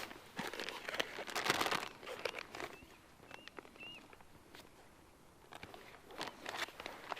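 Footsteps crunching and rustling outdoors, a cluster of steps, then a pause and more steps near the end. A few faint, short bird chirps come in the quiet middle stretch.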